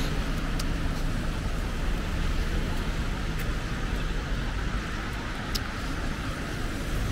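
Steady road traffic: cars running past in a continuous low rumble with tyre hiss.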